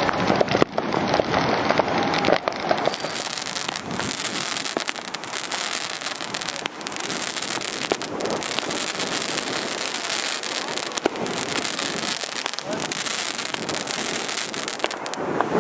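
Fireworks going off: a dense, irregular stream of crackles and pops over a continuous hiss.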